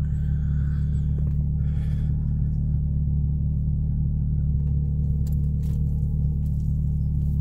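Nissan 350Z's V6 engine running, a steady low drone heard from inside the car's cabin.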